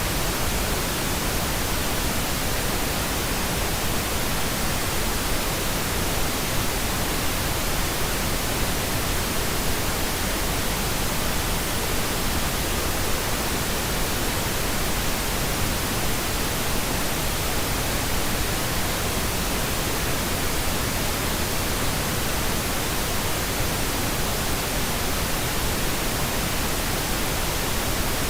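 Steady white noise: an even, unchanging hiss that fills the whole range from deep rumble to high hiss.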